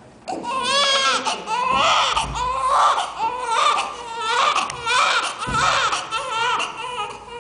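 A newborn baby crying in a run of short, repeated wails that rise and fall in pitch, with brief catches of breath between them. The adults take the crying for hunger.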